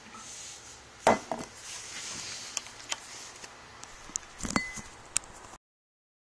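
Handling knocks and taps on a wooden tabletop: one solid knock about a second in, then a few lighter clicks and clunks. The sound cuts out completely after about five and a half seconds.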